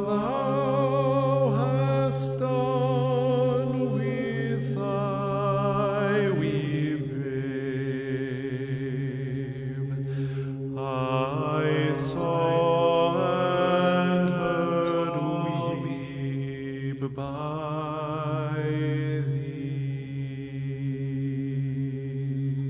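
Chant-like singing: a voice holding long, wavering notes over a steady low drone, with a few brief high clicks.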